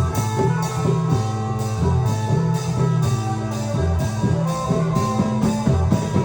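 Klong yao (Thai long drum) band playing amplified music: a steady drum beat of about two strokes a second over a bass line and held melody notes.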